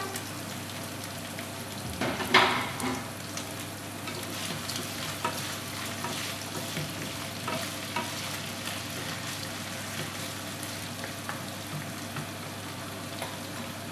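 Diced pork neck sizzling as it fries in a pan, with chopped onion and garlic just added, while wooden spatulas stir and scrape against the pan. There is a louder spell of scraping and sizzling about two seconds in.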